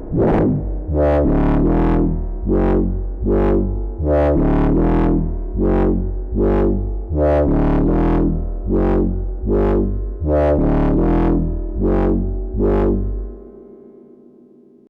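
Eowave Quadrantid Swarm hybrid synthesizer playing a step-sequenced pattern of plucky notes over a deep bass, about two notes a second, each with a sharp bright attack that fades quickly. The sequence stops about 13 seconds in and the sound tails away.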